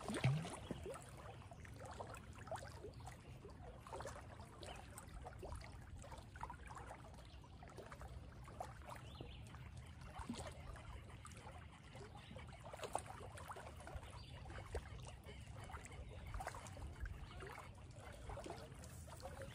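Faint lapping of small waves against shoreline rocks, over a steady low rumble, with scattered small ticks and rustles.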